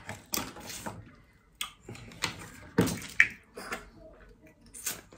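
Wet slurping and sucking as meat is sucked out of boiled lobster leg shells, in a string of short strokes mixed with small clicks of shell.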